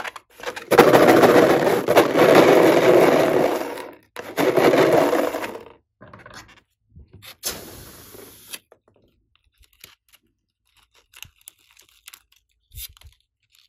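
Hands rubbing and squeezing an inflated latex balloon: a loud scraping, rubbing noise in two long stretches, then a short burst a few seconds later. Near the end, a few light snips of scissors cutting into the rubber.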